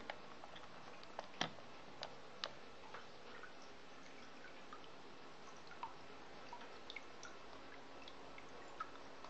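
Small pump running in a plastic tub of water: scattered drips and plinks of water at the surface over a faint steady hum, with the loudest plink about a second and a half in.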